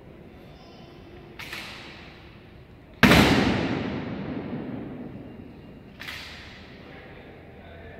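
Three sharp impacts from an honor guard's drill, each followed by a long echo; the second, about three seconds in, is much the loudest.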